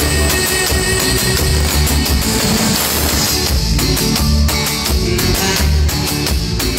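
Live cumbia band playing through a PA, with a pulsing bass line, keyboard and a steady drum beat.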